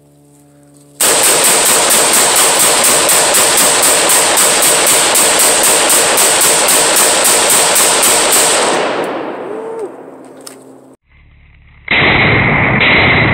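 AR-15 pistol fired in a fast semi-automatic magazine dump: a long, even string of shots at about four to five a second that then dies away. Near the end a different, muffled sound pulsing about twice a second comes in.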